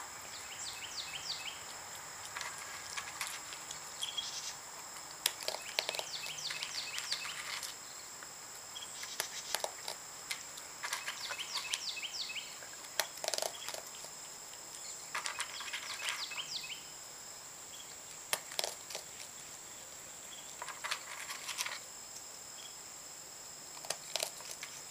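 A young raccoon crunching dry cat kibble, chewing in clusters of crisp clicks that last a second or two and come every few seconds. A steady high insect whine runs underneath.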